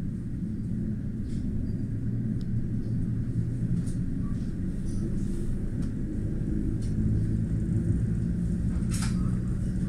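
Electric regional train running along the track, heard from inside the passenger carriage as a steady low rumble with a faint hum.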